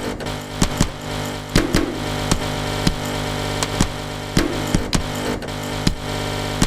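Steady machine-like hum with several fixed tones, overlaid by sharp clicks and knocks repeating in a looped rhythm, about one every half second to second: a section of an experimental track assembled from sampled workplace sounds.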